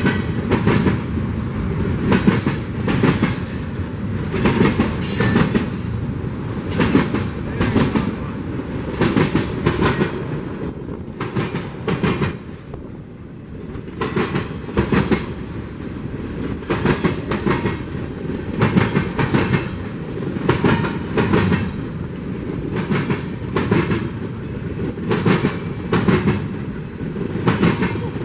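Freight train cars rolling past, their wheels clicking over the rail joints again and again over a steady rumble. The sound dips briefly about halfway.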